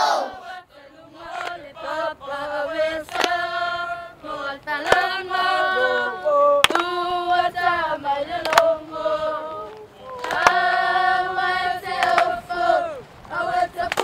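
A children's choir singing in held, chorded notes, with a sharp beat struck about every two seconds.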